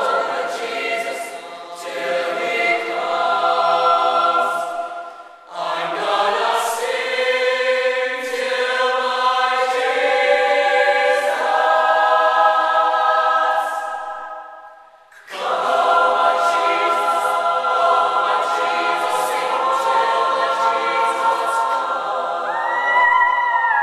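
Mixed choir singing a spiritual in full, sustained chords in several parts. Twice the voices stop together for a moment and come back in.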